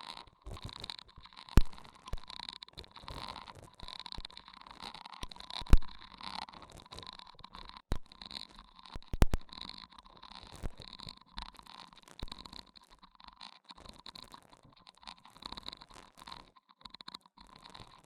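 Layered close-microphone ASMR trigger sounds: soft crackling and rubbing, with a faint pulse about once a second and a few sharp taps or clicks.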